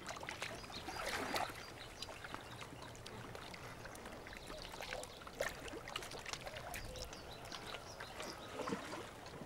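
Soft water sounds around a wooden boat, trickling and lapping, with scattered small clicks and rustles as hands work a fishing net.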